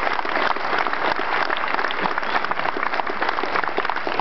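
Large audience applauding, many hands clapping at once at a steady level.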